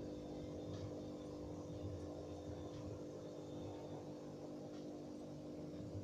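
Aquarium aeration running: a steady electrical hum with a faint hiss of air bubbling through the tank water.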